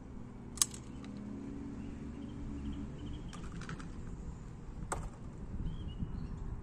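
Sharp metallic clicks of a shotgun being handled and reloaded: a loud click about half a second in, a quick cluster of lighter clicks a little past three seconds, and another sharp click near five seconds. Faint bird chirps and a low steady hum sit underneath.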